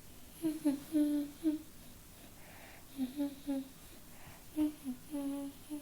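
A girl humming a tune in three short phrases of separate notes.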